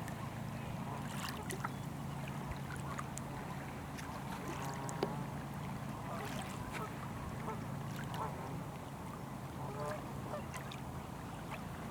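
A flock of ducks and geese calling on the water: scattered quacks and honks, with a few sharp higher chirps, over a steady low hum.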